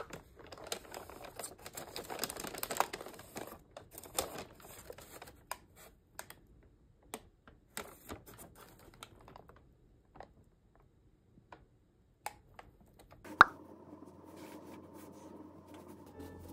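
Paper takeout bag rustling and crinkling as it is opened by hand, densest in the first few seconds, then scattered small rustles and taps. A sharp click near the end, after which soft music comes in.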